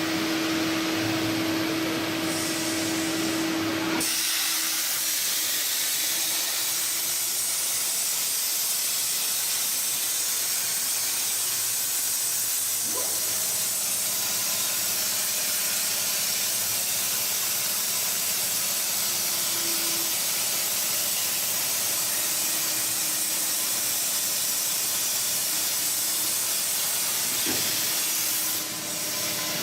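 CNC plasma torch cutting 20 mm steel plate: a loud, steady hiss of the plasma arc and its air jet. It starts abruptly about four seconds in, after a steady hum, and falls away shortly before the end.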